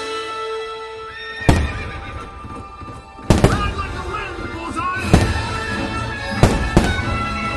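Show music playing over a fireworks display, with five sharp firework bangs, the last two close together near the end.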